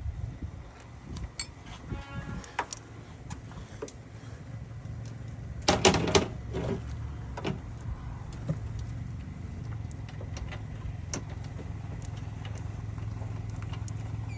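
Aircat 1/4-inch drive air ratchet running in one short burst about six seconds in, tightening a nut on a catalytic converter flange bolt. Scattered clicks and clinks of the tool on metal come before and after it, over a steady low hum.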